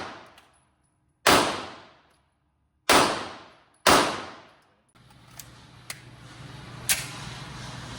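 Three pistol shots, each followed by a fading echo, the second about a second and a half after the first and the third a second after that. Then a steady background noise with a few faint clicks and one sharper crack about seven seconds in.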